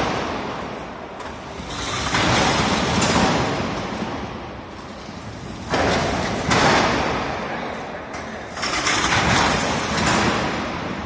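Meniscus coaster car's wheels rolling along its curved steel rail track, a rumble that swells and fades several times as the car swings back and forth, some swells starting abruptly.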